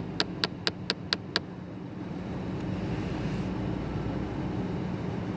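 2010 Nissan Armada making a rapid, even clicking, about four clicks a second, that stops about a second and a half in. A steady low hum continues underneath.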